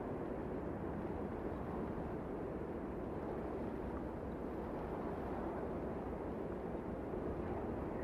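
Canyon wind: a steady, low rush of wind, even in level throughout with no distinct gusts.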